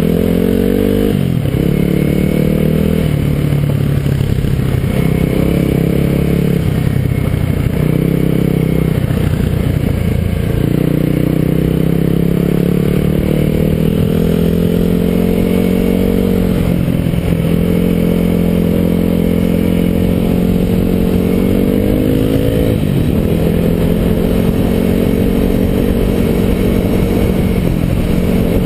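Kawasaki KLX250 dual-sport motorcycle running on the move. The single-cylinder engine's pitch climbs and drops again and again as the throttle is worked through the ride.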